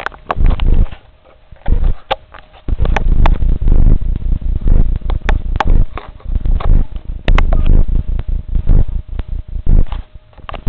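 Handling noise on a handheld camera's microphone: loud, irregular rumbling rubs with many sharp clicks and knocks as the camera is moved about.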